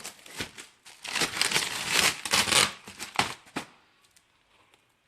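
Packaging on a shipping box being pulled, torn and crinkled open, a dense run of crackling and tearing with sharp clicks that dies away about three and a half seconds in.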